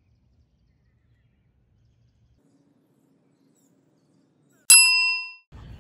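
Near silence, then about five seconds in a single bright metallic ding: one sharp bell-like strike with several ringing overtones that fades out within half a second.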